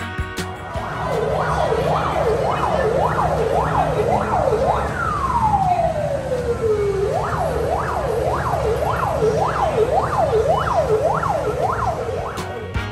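Emergency-vehicle siren on a rapid yelp, rising and falling about twice a second, over a low hum. About five seconds in it gives one long falling wail, then goes back to the yelp.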